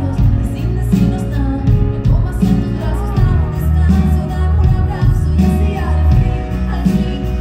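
Live pop song: a woman singing with keyboard accompaniment over a heavy, pulsing bass, recorded from the audience in the hall.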